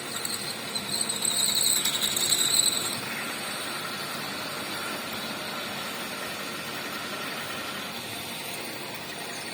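Milling machine running while drilling metal, with a high-pitched squeal of the cutting for the first few seconds, then a steady machine hum.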